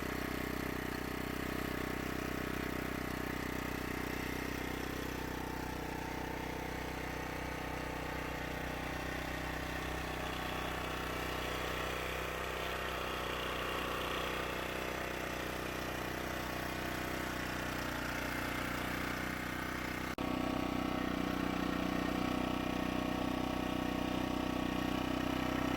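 Champion 1500-watt portable gas generator's small engine running steadily with no load. A faint click comes about twenty seconds in, and after it the engine runs slightly louder.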